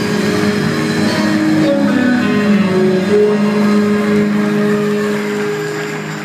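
Live band music with guitar, held chords that shift pitch a couple of times and fade down toward the end.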